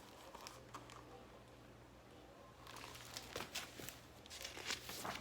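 Soft paper rustling and light handling clicks of a picture-book page being turned, mostly in the second half.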